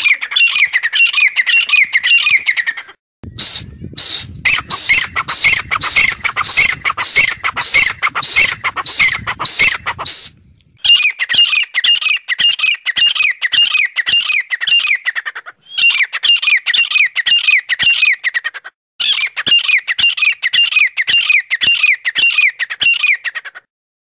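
Francolin calling: a rapid run of shrill repeated notes, each note falling in pitch, in about five bouts with brief breaks between them. A low background rumble runs under the second bout.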